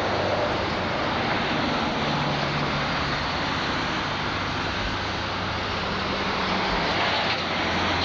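Steady vehicle engine and road noise with a low hum, as passing traffic goes by.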